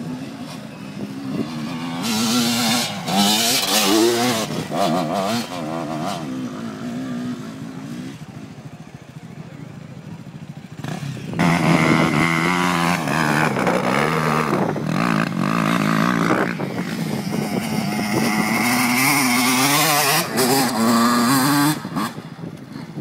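Dirt bike engines revving hard under load while climbing a steep grassy hill, the pitch rising and falling with the throttle. There is one bout from about two seconds in that dies away, then a louder one from about eleven seconds in.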